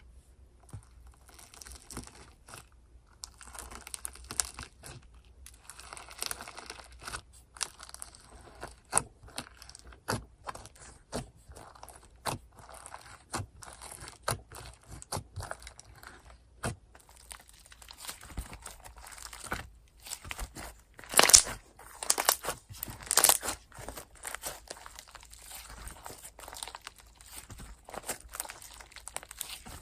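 Hands squishing and poking slime, giving many small irregular crackling pops and crunchy clicks, densest and loudest a little past two-thirds of the way through.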